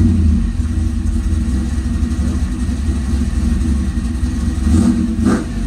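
Pontiac Trans Am WS6's LS V8 idling steadily just after starting, heard from inside the cabin, with a couple of brief swells in engine sound near the end.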